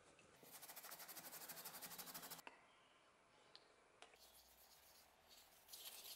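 Quiet rubbing on a small wooden handle slab: a quick, even run of scrubbing strokes from a pad for about two seconds. Near the end comes a second bout of rubbing as linseed oil is worked into the wood by hand.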